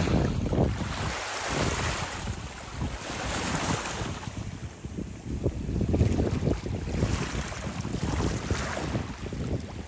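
Wind buffeting the microphone in uneven gusts, over small waves lapping at a pebble shore.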